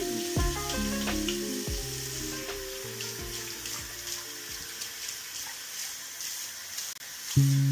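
Water running from a bathroom tap into the sink, over background music. The music becomes loud again near the end.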